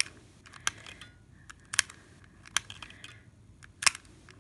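Manual handheld stapler-type sewing machine clicking as it is squeezed to stitch through fabric: five sharp clicks about one a second, alternating louder and softer, each press making a stitch and feeding the fabric on.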